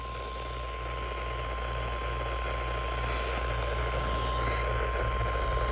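NOAA Weather Radio warning alarm tone, a single steady high tone near 1050 Hz, heard over radio hiss and a low hum. It is the attention signal that comes before a flash flood warning message.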